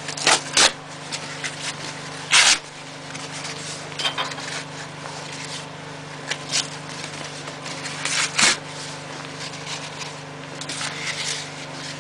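Kindling and paper being handled in a wood stove's firebox: scattered sharp clicks and a short scrape about two and a half seconds in, over a steady low hum.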